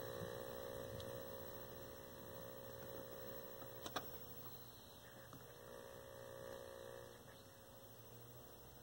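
Faint steady electrical hum from a running Admiral PK1369 vacuum-tube television, fading away about seven seconds in, with a short click about four seconds in.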